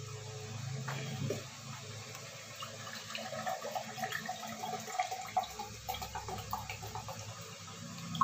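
Water running from a tap, over a steady low hum, with a few small clicks and knocks.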